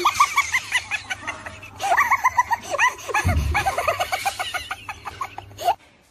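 Rapid, high-pitched laughter: a quick run of short rising 'ha' sounds, with a low thump about three seconds in. It cuts off abruptly near the end.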